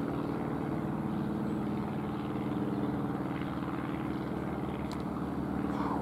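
Light single-engine propeller plane flying overhead, its engine and propeller making a steady, even drone.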